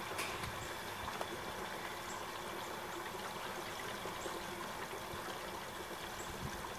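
Propane turkey fryer running: a steady rushing, bubbling hiss from the burner flame under the pot and the turkey frying in the oil.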